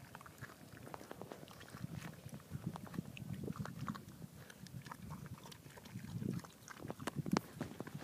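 A pig eating watermelon out of a half rind: irregular wet chomping and smacking, with sharper crunches near the end.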